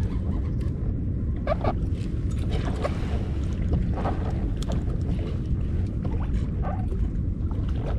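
Steady low rumble of water and wind noise on the microphone in a fishing kayak, with a few short knocks and scrapes from handling gear in the boat.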